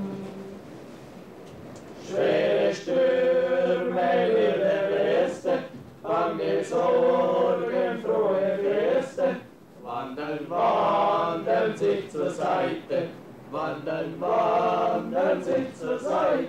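Men's voices singing together in a slow chant, in phrases of a few seconds, starting about two seconds in.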